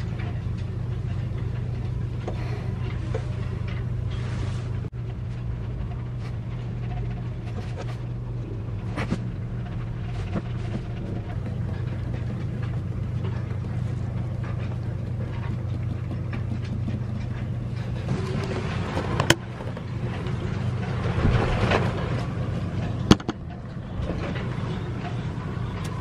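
Steady low machine hum, with light handling noise and two sharp clicks near the end.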